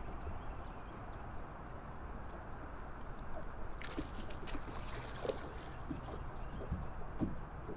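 Small waves lapping and gurgling against a bass boat's hull, with a brief rustling burst about four seconds in.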